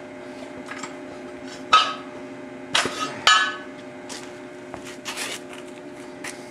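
Sharp metallic clanks and clinks of steel being handled, each with a short ring. The loudest come about two and three seconds in, with smaller knocks after, over a steady low hum.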